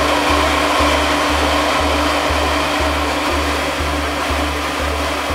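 Acue Sparkie cold spark machine running, a steady hair-dryer-like rushing hiss from its blower as it shoots a fountain of sparks. Under it, background music with a bass beat about twice a second.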